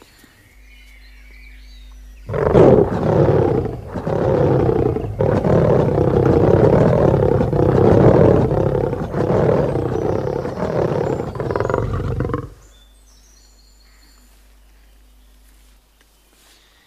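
A lion roaring: one long, loud, rough roar lasting about ten seconds with a few short breaks, starting about two seconds in and cutting off suddenly.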